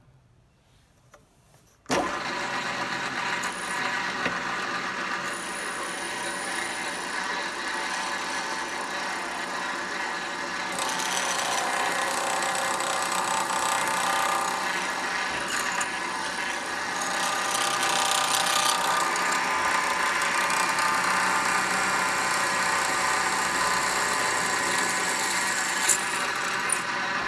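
Bench pillar drill switching on about two seconds in and running steadily, its bit drilling through a thin metal wing plate and tube held in a drill-press vise. A brighter cutting noise joins from about eleven seconds in and eases near twenty seconds.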